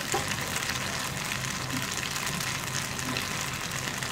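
Yogurt-based chicken marinade frying in oil in a pan: a steady sizzle.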